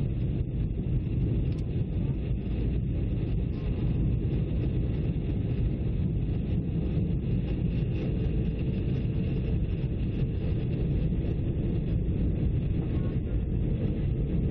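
Steady low roar inside a jet airliner's cabin, the engines and rushing airflow heard from a window seat during the descent to landing.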